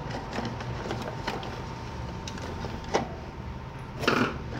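Handling noise from disassembling a plastic fan motor housing with a screwdriver: a few sharp plastic clicks about three seconds in and a short scraping rustle about four seconds in, over a steady background hum.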